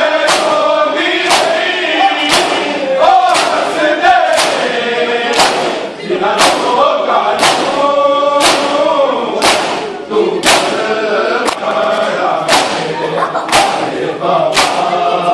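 Crowd of men chanting a noha, a Shia lament, in unison, with sharp slaps of hands striking bare chests (matam) in time with the chant, about once a second.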